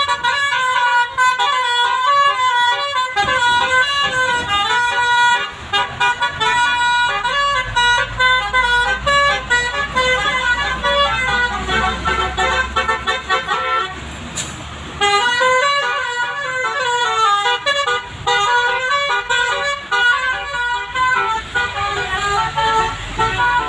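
Basuri 'telolet' multi-note air horn playing a fast melody of short stepped notes, with a brief break about two-thirds of the way through. A vehicle engine rumbles underneath in the middle stretch.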